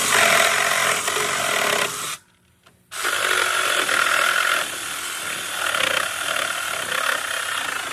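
HyperTough 20 V cordless reciprocating saw with a Diablo carbide demolition blade cutting through the nails that hold a fence post to its 2x4 nailers. It runs for about two seconds, stops briefly, then starts again about three seconds in and keeps cutting.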